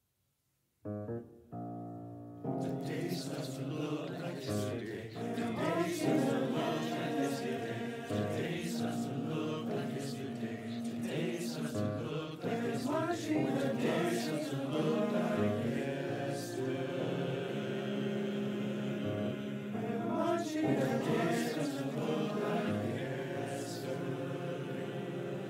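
Large choir singing a slow choral piece. It enters out of silence about a second in and swells fuller a second or two later.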